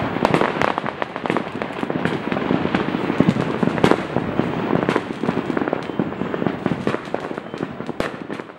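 Aerial fireworks going off in quick succession: dense crackling with many sharp bangs, growing fainter toward the end.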